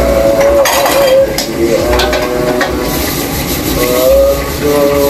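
A metal utensil stirring and scraping in a frying pan over sizzling oil, with repeated short scrapes. A wavering tone comes and goes over the top.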